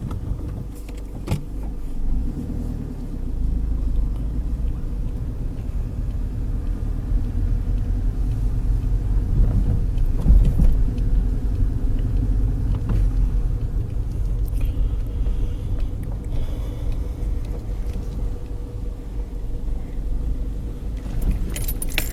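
Car engine running with a steady low rumble, plus a few small clicks near the start. Near the end, keys jangle.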